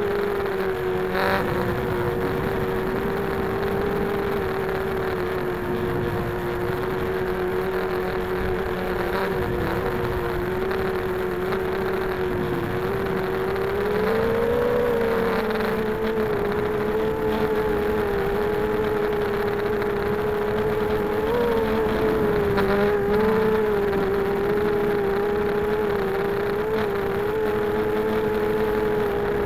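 Brushless motors and 5-inch props of a 250-size FPV racing quadcopter, heard through its onboard camera: a steady buzzing whine that wavers with throttle and rises briefly in pitch about halfway through.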